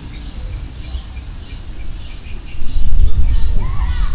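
Birds chirping and calling, over a thin steady high-pitched tone in the first half. About two and a half seconds in, a loud low rumble rises and carries on, with short bending calls near the end.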